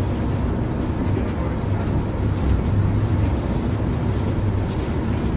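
Boat engine running steadily with a low hum, under a constant wash of noise.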